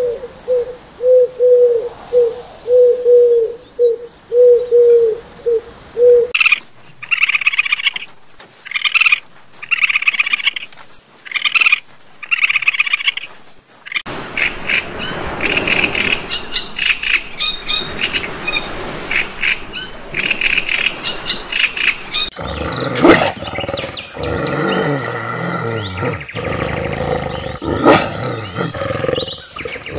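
A run of animal calls in turn: an owl's low hoots repeated evenly, about one and a half a second; then a series of high chirping calls about a second apart; then, about halfway, young raccoons' high chittering; and near the end louder, rougher cries.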